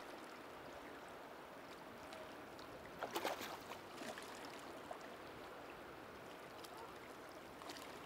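Faint steady wash of shallow sea water, with a brief burst of splashing about three seconds in as a landing net lifts a hooked Atlantic salmon out of the water, and a few smaller splashes after it.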